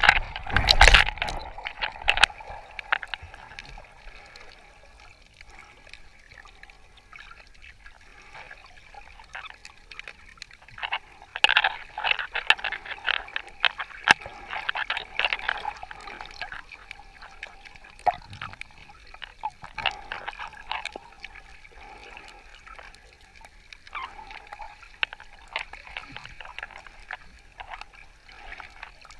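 Sea water sloshing and gurgling around a camera held in the water by a snorkeller, with a scatter of faint clicks. It swells loudest at the very start and again for a few seconds about twelve seconds in.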